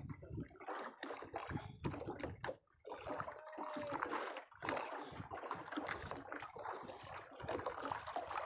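Sea water slapping and splashing against the hull of a small open boat rocking on choppy water. The sound comes and goes unevenly, with a short faint squeak about three and a half seconds in.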